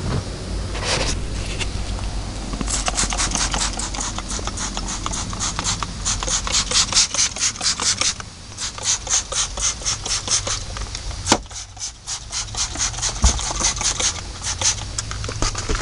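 Cloth rubbing back and forth over a truck's plastic dashboard and door trim, wiping on a protectant in quick strokes about four a second, with a couple of short pauses. A single sharp click about eleven seconds in.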